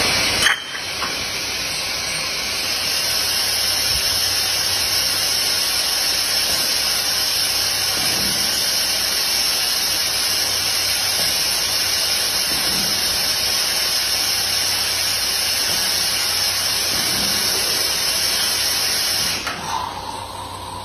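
Multi-head bottle filling machine running orange juice into a row of glass bottles through its nozzles: a steady hiss starts with a clunk about half a second in and cuts off sharply near the end as the fill finishes. A short squeal follows.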